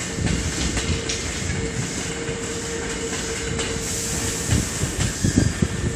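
Hankyu Kyoto Line electric train running along the track with a steady hum, its wheels knocking over the rail joints several times near the end.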